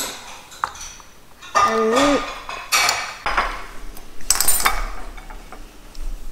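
Spoon and cutlery clinking and scraping against a ceramic bowl and plate during a meal, with a few sharp clicks. A brief wordless voice sound, rising and falling in pitch, comes about two seconds in.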